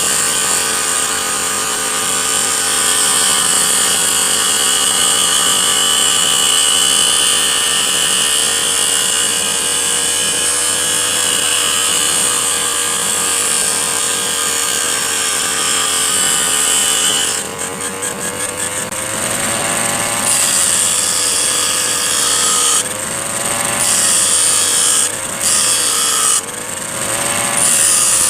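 Brush cutter's engine spinning an abrasive disc against a steel file: a steady whine with a harsh grinding hiss. About two-thirds through, the grinding breaks off and comes and goes in short contacts, and the engine speed dips and recovers several times.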